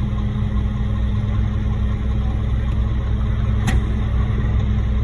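Heavy diesel truck engine idling steadily, with a single short click about three and a half seconds in.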